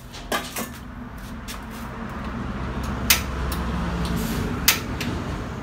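Tabletop gas stove being lit: the knob is turned and the piezo igniter snaps twice, about a second and a half apart, over a steady rush. A short knock near the start as a steel bowl is set on the counter.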